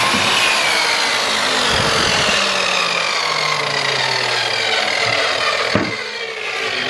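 Electric miter saw running and cutting through a wooden board, then its motor winding down with a slowly falling whine. A short knock comes near the end.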